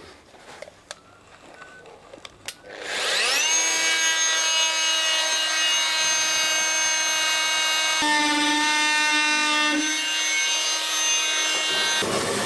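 Small handheld electric power tool cutting wood: a few handling knocks, then the motor spins up about three seconds in and runs at a steady high pitch. Its pitch drops for a couple of seconds near the middle as it bites into the cut.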